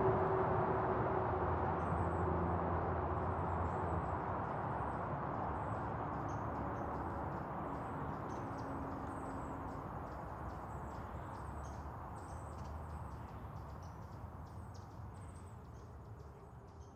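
Distant traffic rumble with small birds chirping in quick, high, repeated notes, the whole outdoor ambience fading out slowly.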